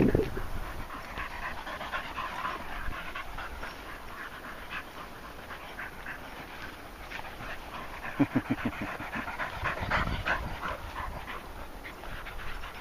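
Dogs panting, with a run of quick panting breaths about eight seconds in, over crackly rustling through bracken and long grass.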